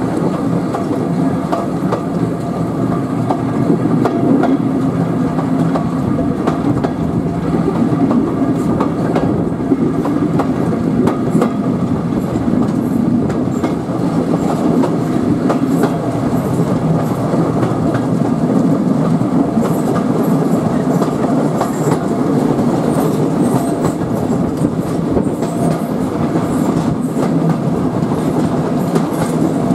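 Passenger train hauled by a GWR 6400 class pannier tank running steadily along the line, heard from an open carriage window: a continuous rolling rumble with the wheels clicking over rail joints.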